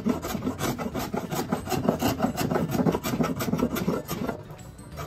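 Spokeshave blade shaving the edge of a varnished wooden stool top in quick, repeated scraping strokes, rounding over the sharp corner. The strokes ease off a little over four seconds in.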